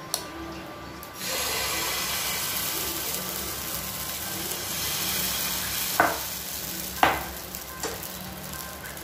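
Rava (semolina) batter sizzling as it is poured onto hot oil in a non-stick pan, starting about a second in and going on steadily. Two sharp knocks about a second apart come near the end.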